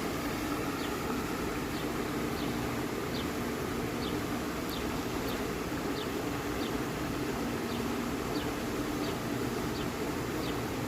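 Outdoor ambience: a steady low rumble with a short high chirp that repeats about once or twice a second.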